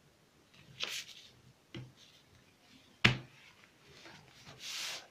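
Tools being handled on a paper pattern: a short rustle, a light tap, then a sharp clack about three seconds in as a plastic curve ruler is set down on the paper. Near the end comes a brief scrape as the ruler slides over the paper.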